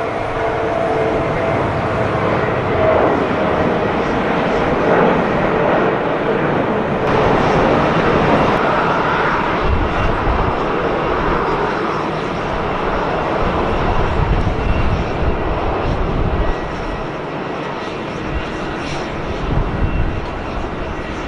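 Jet engines of a Boeing 767-300 airliner running steadily as the plane rolls along the runway and taxis.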